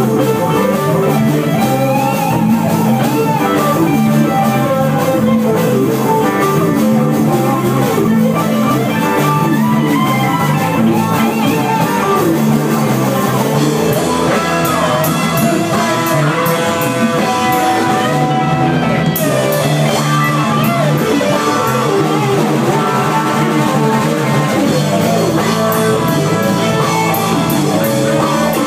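Blues-rock instrumental music led by guitar, with a drum kit keeping time.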